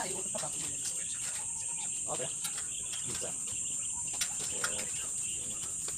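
Steady high-pitched drone of insects, with faint voices and a couple of light clicks about four seconds in.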